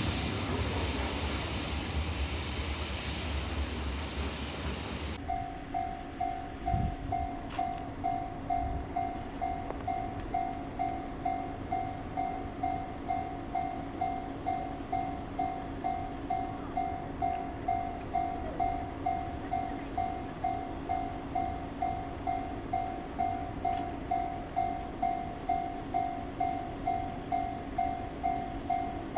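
A freight train passing over a Japanese level crossing, its dense rumble cutting off sharply about five seconds in. Then the crossing's electronic warning bell rings a steady, evenly repeating two-tone 'kan-kan' of about one and a half strokes a second, over a faint low hum.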